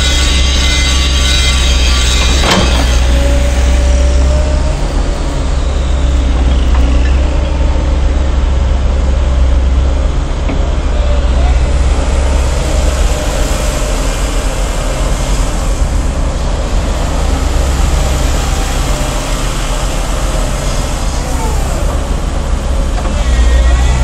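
2007 Volvo EC140BLC crawler excavator working: its diesel engine runs steadily under hydraulic load as the boom, arm and bucket move and the upper structure swings. A sharp knock comes about two and a half seconds in, and a few brief squeaks near the end.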